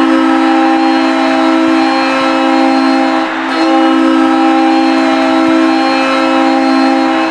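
Ice hockey arena goal horn blaring in long, steady, multi-tone blasts, with a brief break a little over three seconds in and a sudden cut-off at the end, over loud crowd noise.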